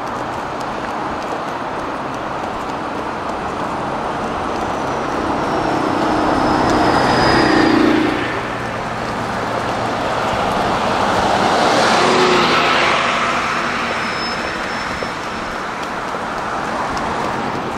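City street traffic: two vehicles pass close by, over steady road noise. The first is loudest about eight seconds in and falls away quickly; the second peaks about twelve seconds in and fades.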